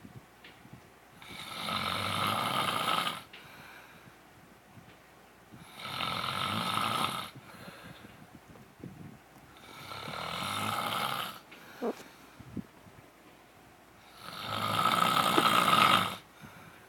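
A man snoring in his sleep: four long snores, about four seconds apart, each lasting a second or two, the last one the loudest.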